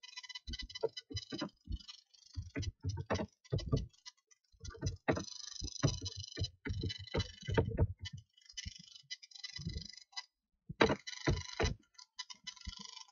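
Typing on a computer keyboard: an irregular clatter of keystrokes with short pauses between runs.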